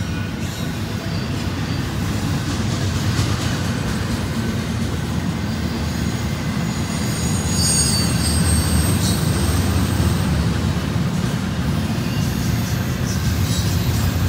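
Union Pacific double-stack intermodal container train rolling past, its cars and wheels making a steady low rumble on the rails. Thin, high-pitched squeals from the wheels rise over the rumble about halfway through and again near the end.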